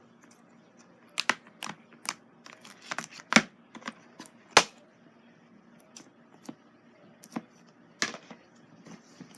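Slime being squeezed and poked, giving irregular sharp clicks and pops, with the loudest pops about three and a half and four and a half seconds in.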